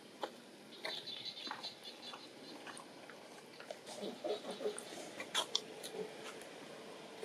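Long-tailed macaques with infants: scattered sharp clicks, a run of short high squeaks about a second in, and brief low wavering calls around four to five seconds in, over a steady hiss.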